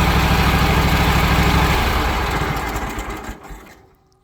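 An engine running steadily at a loud level, then dying away over the last couple of seconds to near silence.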